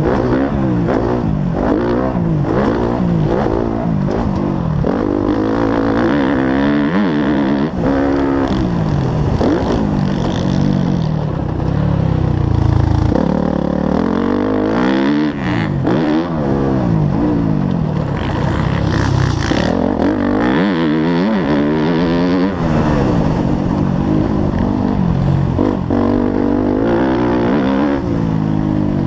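Motocross bike engine heard on board, revving hard and easing off again and again as the rider accelerates, shifts and brakes around a dirt track, its pitch rising and falling every second or two.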